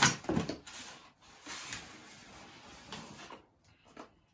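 A sharp knock, then rustling and small knocks of things being handled. These stop about three and a half seconds in, with one faint click near the end.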